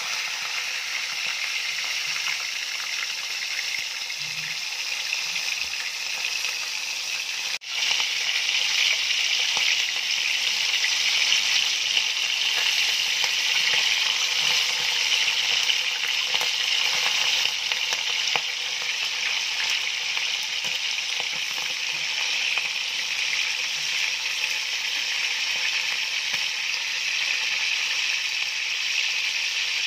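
Whole Indian mackerel frying in hot oil in a pan: a steady sizzle, with a brief break about eight seconds in, after which it runs a little louder.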